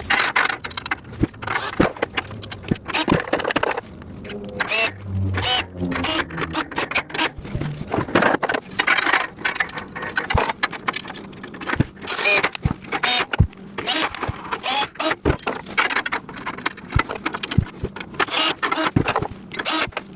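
Irregular clicks, knocks and clatter of metal rack parts and plastic bins being handled and fitted together during assembly.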